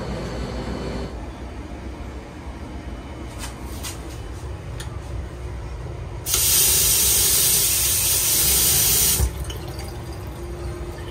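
Tap water running into a round vessel washbasin and splashing over a hand for about three seconds, starting and stopping abruptly. A low steady hum runs underneath.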